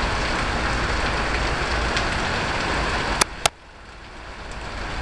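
Heavy rain pouring steadily onto a wet parking lot. About three seconds in come two sharp clicks in quick succession, after which the rain suddenly sounds much quieter and then slowly swells back.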